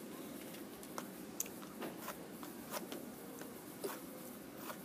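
Sparkler's wire and coated tip rubbed against a matchbox's striking strip: faint scattered scratches and clicks at uneven intervals. It is a failed attempt to light the sparkler, which never catches.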